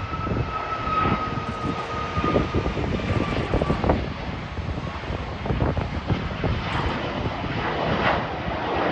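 Jet airliner engines running loud: a whine slowly falling in pitch that fades after about three and a half seconds, over a steady, rough rumble.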